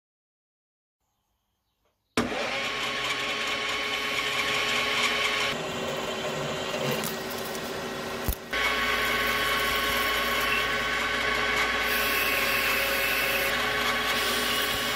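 Metal lathe running while a metal bar is drilled and turned, a steady mechanical whine of motor and gears under the hiss of cutting. It starts abruptly about two seconds in and breaks off briefly with a click a little past halfway.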